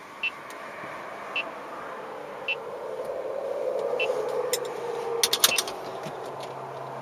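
Uniden R7 radar detector giving single, evenly spaced alert beeps about every second and a half while locked on a weak 24.035 GHz K-band signal from a Redflex camera van. A passing vehicle swells and fades in the middle, and a quick cluster of sharp clicks about five seconds in is the loudest sound.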